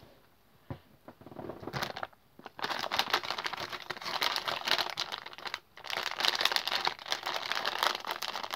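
Clear plastic packaging bag crinkling as it is handled. A few small clicks at first, then dense crinkling from a couple of seconds in, with one short pause about halfway through.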